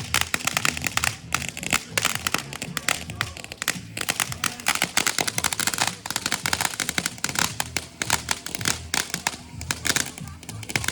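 Consumer fireworks crackling, a dense rapid stream of sharp pops and snaps without a break.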